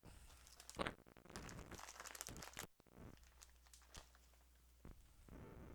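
Faint crinkling and rustling of a plastic food bag being handled, with a sharp knock a little under a second in.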